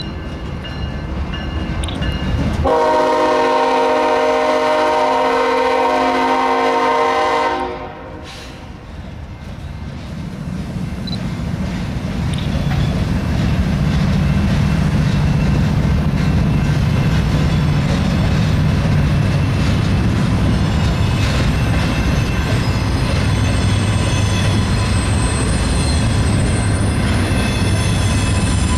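Freight train horn sounding one long blast of about five seconds a few seconds in, cutting off abruptly, over passing BNSF diesel locomotives. Then the steady low rumble and clatter of double-stack container well cars rolling by.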